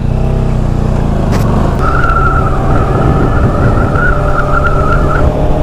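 Motorcycle riding at a steady speed: the engine's low hum under a heavy rush of wind noise. A thin, steady high whistle-like tone holds for about three seconds in the middle.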